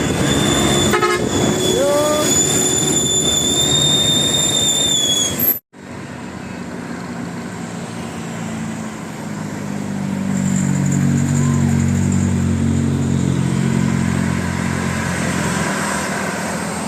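Road traffic with a large bus: a steady high-pitched tone holds for about five seconds. After a sudden cut, a bus engine runs with a low droning note that swells about ten seconds in.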